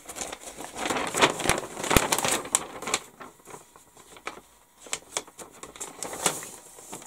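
Workbench handling sounds: paper rustling for a couple of seconds, along with many light clicks and taps of small tools and parts being handled, which thin out to scattered clicks in the second half.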